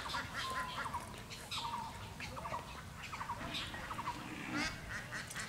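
Birds calling over and over in short, rapid chattering notes, with a low steady background noise.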